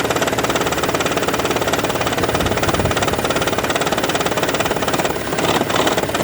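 2012 Toyota Prius petrol engine running with a heavy, fast, continuous rattle, an abnormal noise whose cause the owner does not know.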